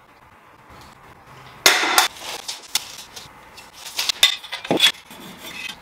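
Sharp clattering knocks and clinks of things being handled, the loudest a short crash about two seconds in, then scattered knocks and scrapes as a flexible plastic electrical conduit is moved against a plasterboard wall.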